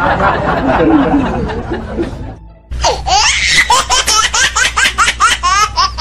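Canned laughter that fades out about two seconds in, followed by a rapid run of high, rising squeaky notes like a sped-up comic laugh sound effect.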